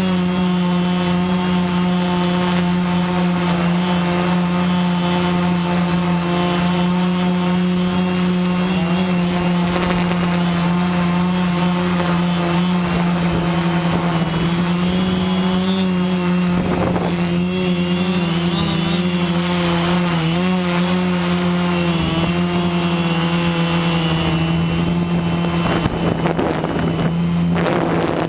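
Multirotor drone's electric motors and propellers running with a steady whining hum, recorded by the drone's onboard camera. The pitch wavers a little as the throttle changes and shifts near the end.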